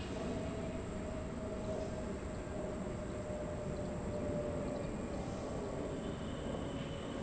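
Steady outdoor background rumble like distant traffic, with a constant high-pitched whine over it and a faint hum that slowly sinks in pitch. No bird calls stand out.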